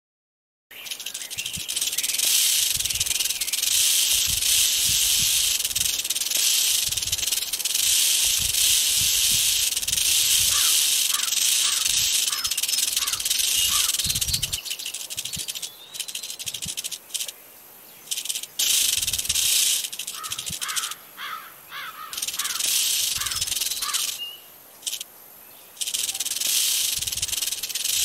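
Rattlesnake buzzing its tail rattle, a dense high-pitched buzz that starts about a second in and, in the second half, breaks off and starts again several times.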